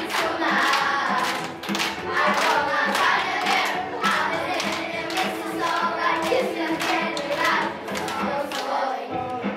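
Children's choir singing an upbeat English-language Christmas song over music with a steady beat, about two beats a second, the children clapping along.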